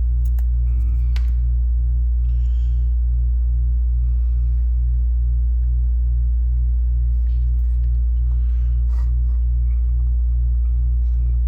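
Steady, loud low hum from an air-conditioning unit, with a slightly higher layer that pulses about two to three times a second. Faint small clicks from handling components come and go over it.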